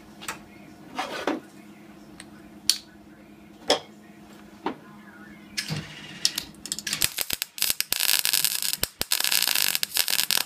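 MIG welder arc crackling as a steel patch is welded into a rusted car-body window corner: a few short isolated sounds first, then from about seven seconds in a stuttering crackle that becomes a continuous run and stops suddenly.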